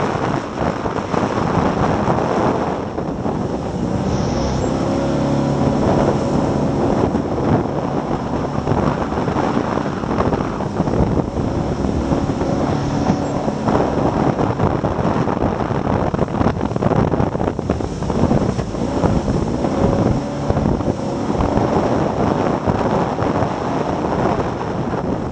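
Jet boat's fuel-injected 383 Chevy V8 running under way, its pitch rising and falling several times with the throttle, over steady wind on the microphone.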